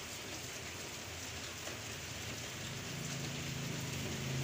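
Steady, even hiss of background noise, rain-like, with a low steady hum coming in about three seconds in.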